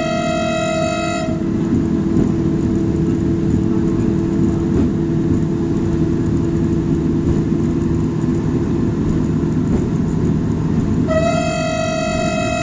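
A train running steadily along the line, with a continuous rumble and a low hum. It sounds a single-pitched warning signal that ends about a second in, and sounds it again in one long blast near the end.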